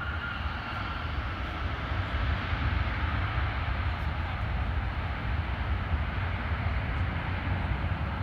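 Jet airliner passing close by, its engines running loud with a deep rumble and a high whine that slowly falls in pitch in the first couple of seconds.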